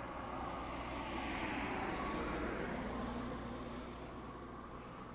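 A vehicle passing by: a rushing noise that swells to a peak in the middle and fades away.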